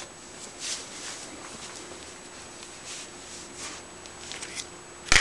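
A young cat eating, licking food from a person's fingers, with short soft eating sounds scattered through. One sudden loud knock comes near the end.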